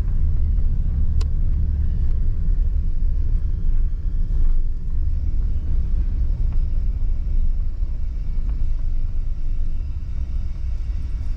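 Steady low rumble of a pickup truck driving along an unpaved road, heard from inside the cab: road and engine noise. A single sharp tick about a second in.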